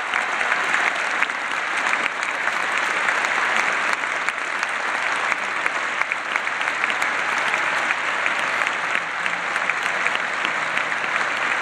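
Large arena audience applauding steadily: a dense mass of many hands clapping.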